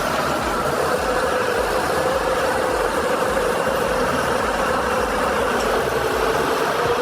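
An engine running steadily at a constant pitch, with no revving or load changes.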